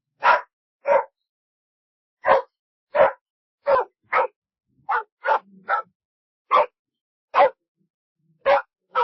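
A dog barking repeatedly: about a dozen short single barks spaced irregularly, with clean silence between them.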